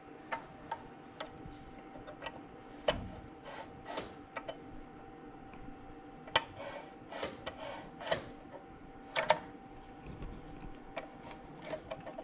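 Irregular light clicks and knocks from a kart's steering wheel and its throttle-cable linkage as the wheel is turned back and forth. The linkage moves without binding.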